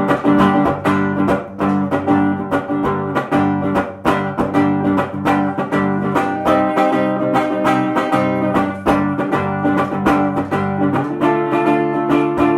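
Live band playing an instrumental break, led by strummed acoustic guitar with a steady rhythm.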